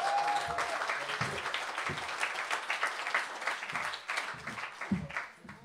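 Audience applauding: a dense patter of clapping that thins out and dies away near the end.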